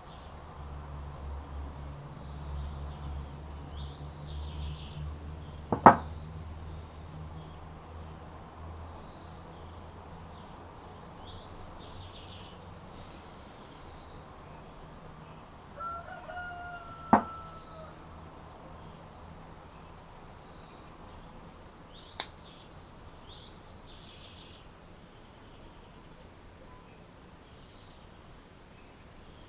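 Outdoor background with small birds chirping faintly now and then and a low hum that fades after about ten seconds. A few sharp clicks stand out, the loudest about six seconds in, from pliers and hook hardware being handled on the work table.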